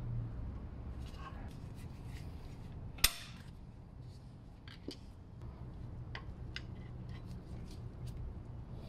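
Flat screwdriver prying the metal retaining spring off a Mercedes W212 front brake caliper: small metal scrapes and clicks, then one sharp metallic snap about three seconds in as the spring comes free, followed by lighter metal clicks and taps.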